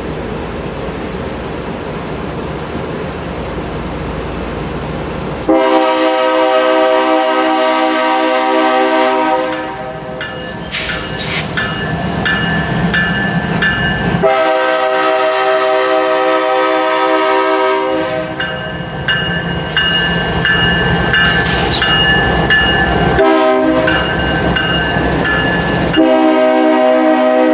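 Freight locomotive air horn sounding the grade-crossing pattern over the rumble of the approaching train: two long blasts, a short one, then a long one. The horn is a multi-note chord, on GE DC unit 7661 leading Norfolk Southern train 191.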